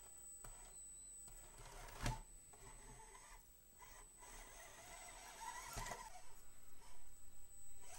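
1/24-scale micro RC crawler's small electric motor and gears whirring faintly as it crawls down a wooden obstacle, with a sharp knock about two seconds in and another near six seconds as the truck bumps onto the wood.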